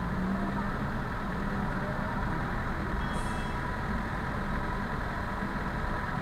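Steady vehicle engine idling with low rumble, and a brief high hiss about three seconds in.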